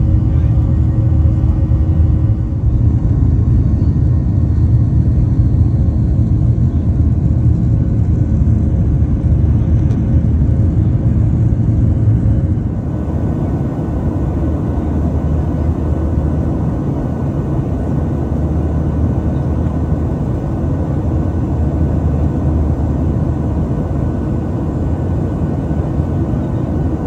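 Steady cabin roar of a Boeing 737-600 climbing, heard from a window seat beside its CFM56-7B turbofan, with a deep engine rumble under the rush of air. About halfway through, the deep rumble eases and a lighter, higher rush takes over, a little quieter.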